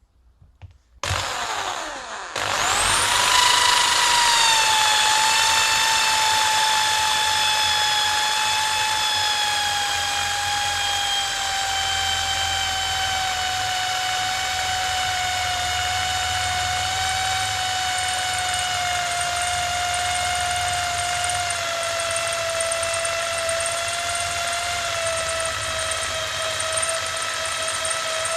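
Electric drill boring into a piece of flat steel. The motor starts about two seconds in and runs with a steady whine whose pitch climbs quickly, then sinks slowly as the bit cuts under load.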